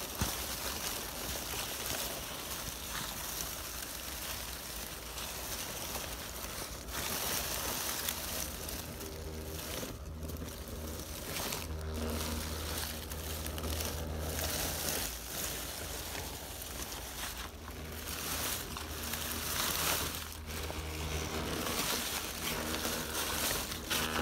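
TRX-4-clone RC crawler driving through dry fallen leaves: the leaves rustle and crunch under its tyres, and the whine of its small electric motor and gearbox comes and goes through the middle.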